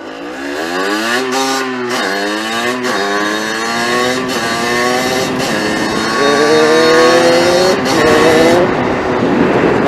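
A 50cc motorbike engine pulling away and accelerating through the gears: its pitch climbs, drops back at each of several gear changes, then climbs again. Wind rushes on the microphone as the speed builds near the end.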